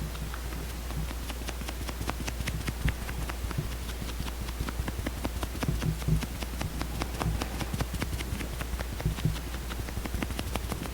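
Close-miked tapping and light clicking on a foundation compact: many quick, irregular taps several a second, over a faint steady low hum.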